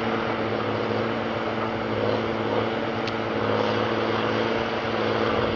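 Heavy-equipment diesel engine running steadily at one even pitch.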